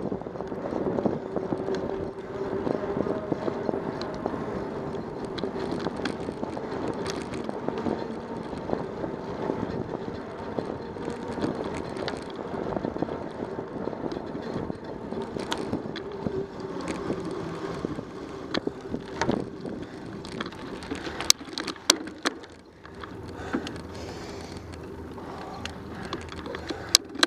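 Bicycle rolling along a paved road: a steady rolling rumble and rattle, with a few sharp clicks and knocks near the end, after which it quietens.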